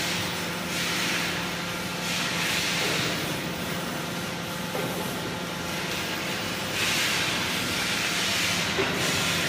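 Rice husk baling machine running: a steady mechanical hum with a hissing rush that swells up three times.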